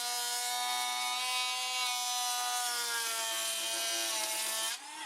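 Makita cordless power planer running at full speed with a steady high whine, then switched off near the end and winding down.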